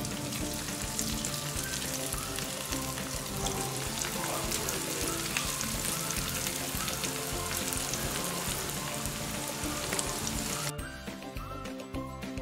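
Cornflake-coated chicken pieces deep-frying in hot oil: a dense sizzle full of fine crackles, with background music underneath. Near the end the sizzle drops away abruptly while the music carries on.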